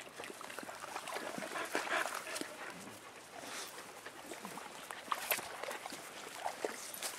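Dogs playing: scuffling and rustling movement with a few brief whimpers in the second half.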